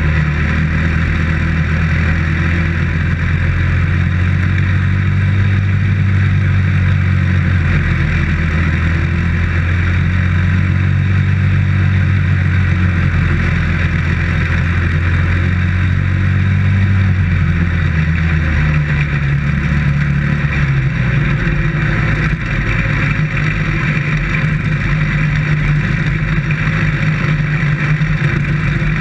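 Dirt-track race car engine running hard at speed, heard from inside the cockpit with a strong rushing noise over it. The engine note shifts lower about two-thirds of the way through.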